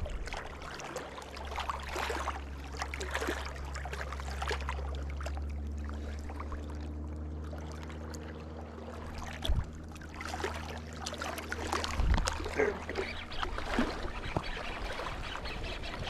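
Water lapping and trickling at the shoreline over a steady low hum. A faint droning tone with several steady pitches comes in about five seconds in and fades about twelve seconds in. Two sharp knocks come near the middle and about three-quarters of the way through.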